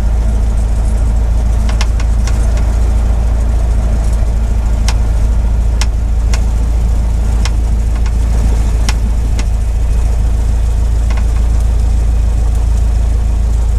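Light single-engine aircraft's piston engine and propeller running steadily, a loud low drone heard inside the cockpit, with a scattering of sharp clicks on top.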